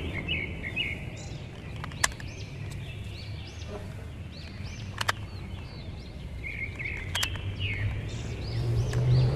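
Plastic of a toy Groza blaster and its red magazine being handled, with a few sharp clicks, the loudest about two and five seconds in, while birds chirp repeatedly. Near the end a vehicle engine rises in the background.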